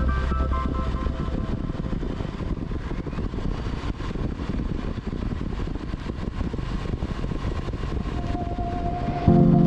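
Motorcycle riding sound: the Triumph Bonneville T100's engine running with wind rushing over the microphone as a steady, fluttering low rumble. Background music fades out at the start and cuts back in near the end.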